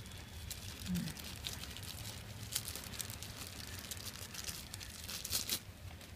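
Translucent plastic wrapping crinkling and crackling as a micro USB charging cable is unwrapped from it by hand. There are many small crackles, with a louder rustle about five seconds in.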